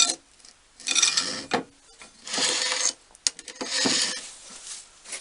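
Metal hand files being handled, rubbing and clinking against each other and their holder. This comes as about four short scraping bursts with a few sharp clicks between them.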